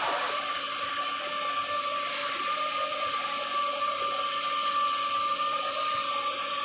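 Running paint-plant machinery: a steady rushing drone with a constant high whine over it.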